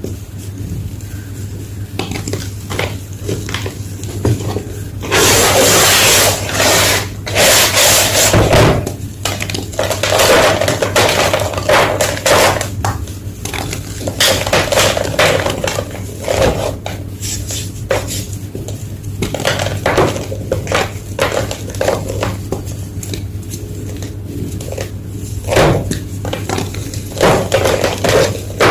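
Blocks of gym chalk being crushed and crumbled, giving irregular crunching and crackling, thickest and loudest from about five to nine seconds in. A low steady hum runs underneath.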